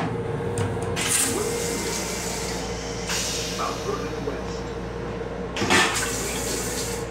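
Metro-North M7 railcar toilet flushing into its stainless-steel bowl: a hissing rush starts about a second in, a second hiss follows about three seconds in, and a short loud thump comes near the end. A steady train hum runs underneath.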